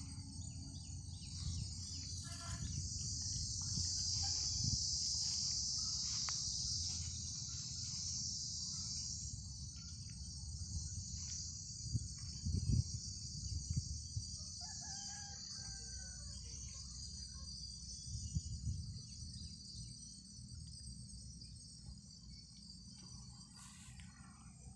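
A steady, high-pitched chorus of insects, loudest in the first third, over a low wind rumble on the microphone. A rooster crows faintly about two-thirds of the way in.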